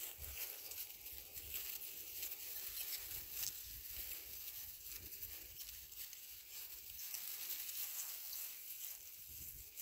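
Faint, steady crackling and rustling in dry grass and fallen leaves, made by footsteps or sheep moving and grazing.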